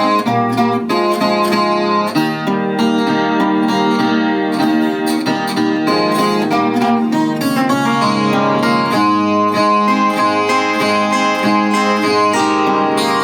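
Chilean guitarrón, a 25-string plucked instrument, played as an instrumental with rapid plucked notes over a ringing bass.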